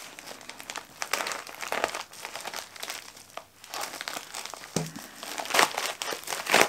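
Padded plastic mailer crinkling as it is slit open with a pocket knife and its contents pulled out: irregular crackling rustles, with a short lull midway and the loudest rustling near the end.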